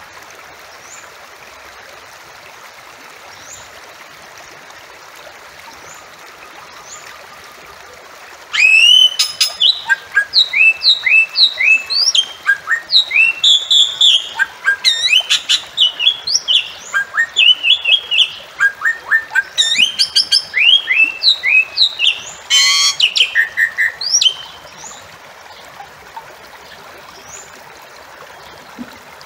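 Bali myna calling: a rapid run of short whistled notes, each rising in pitch, mixed with harsh raspy calls near its start and near its end. The calling starts abruptly about a third of the way in, lasts about fifteen seconds and then stops, over a faint steady hiss.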